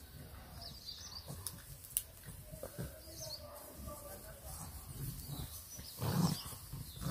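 English bulldog puppies play-fighting in dry grass clippings: low grunts and growl-like noises with rustling, loudest about six seconds in. Birds chirp faintly in the background.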